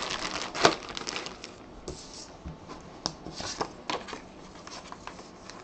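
Clear plastic bag around a jersey crinkling as hands handle it, with a sharp crackle about two-thirds of a second in and then fainter scattered crackles and ticks as a paper card is pulled out beside it.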